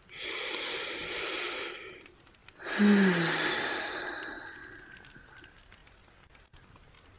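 A woman drawing a slow breath in, then, about three seconds in, letting out a long sigh. The sigh opens with a brief hum falling in pitch and trails off over a couple of seconds.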